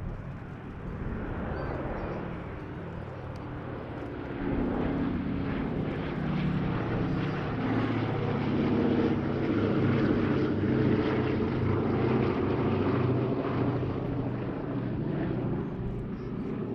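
Boeing B-17G Flying Fortress's four nine-cylinder Wright Cyclone radial engines droning through a pass, swelling louder about four seconds in and easing a little near the end.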